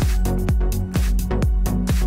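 Electronic dance music with a steady kick-drum beat, a little over two beats a second, over a sustained bass line.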